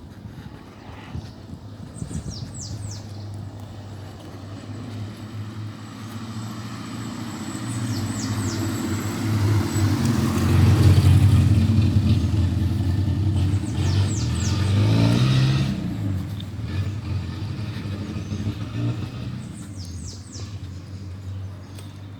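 A motor vehicle passing on the road: its engine sound builds, is loudest around the middle, shifts in pitch about two-thirds of the way through, then fades away.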